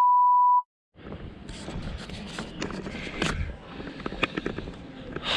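A steady electronic beep that cuts off abruptly about half a second in, then a moment of silence, then outdoor ambience with scattered clicks and knocks.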